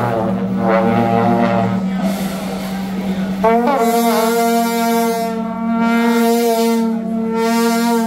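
Long processional horns with flared bells blowing sustained, steady notes. About three and a half seconds in, a new note comes in with a short upward slide and is held.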